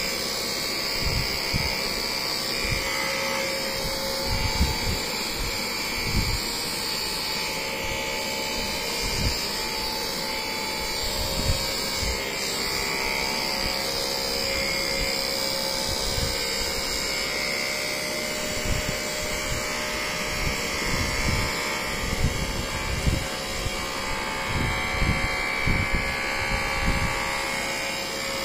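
Corded handheld electric massager running steadily against a person's back: a continuous motor hum, with irregular low thumps.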